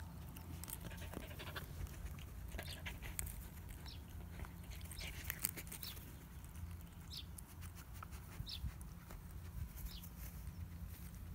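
A dog sniffing at and pawing a stuffed toy treat ball on grass, with soft rustles and small clicks throughout and a short high squeak every second or two.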